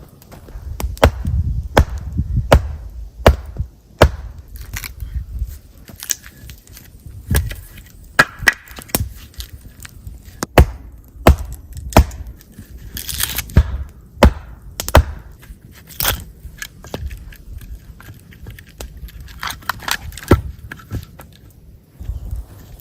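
A blade chopping and shaving into a wooden log: sharp, irregular knocks of the edge biting the wood, roughly one a second, with light scraping between them.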